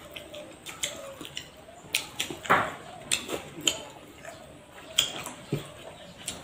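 Close-up eating sounds: chewing and lip smacks while eating duck curry and rice by hand, as a string of short, irregular clicks and smacks.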